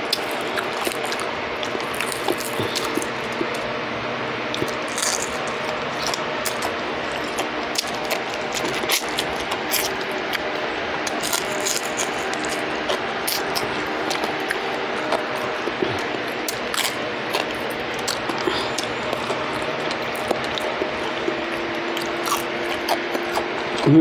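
Close-miked eating sounds of deep-fried pan trout: many short crunches, lip smacks and finger-picking clicks as the fried fish is chewed and picked off the bone, over soft steady background music.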